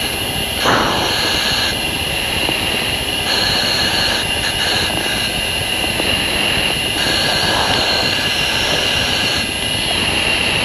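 Steady cockpit noise inside an F-16 in flight: its single jet engine and rushing air. A higher hiss comes and goes every couple of seconds over it.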